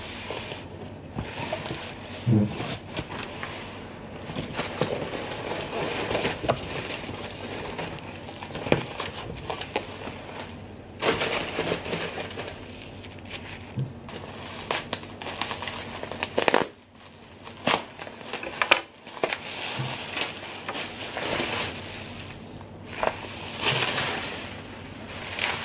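Bubble wrap and a cardboard box being handled while bubble-wrapped plates are unpacked: plastic crinkling and rustling in irregular bursts, with occasional short knocks.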